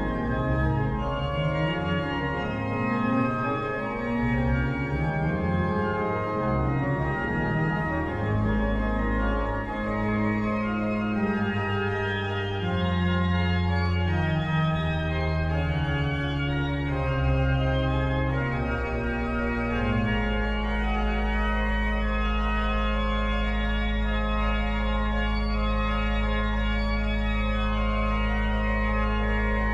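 Pipe organ playing a piece with a moving bass line, settling about twenty seconds in onto a long held chord over a deep pedal note.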